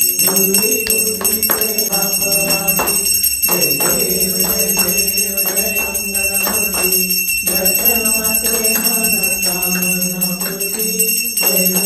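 A small brass hand bell (ghanti) rung continuously for the aarti, over devotional music with a melody and a regular beat.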